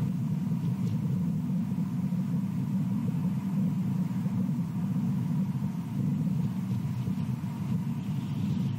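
Steady low rumble that does not change, with a faint thin tone above it.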